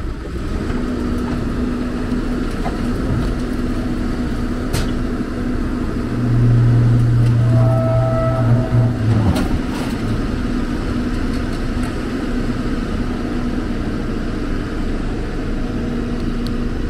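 Heavy diesel engine running steadily while the lowboy trailer's loading ramps are raised. A louder, low hum with a higher whine joins it for about three seconds from about six seconds in. There are a couple of sharp metallic clanks, one before the hum and one as it stops.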